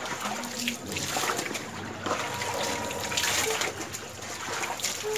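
Water splashing and dribbling as a wet towel is washed by hand on a wet concrete floor, with several short slaps and splashes among a steady trickle.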